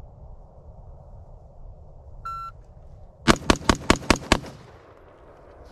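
A shot timer's electronic start beep, then a budget AR-15 rifle firing a rapid string of six shots in just over a second: a Bill drill.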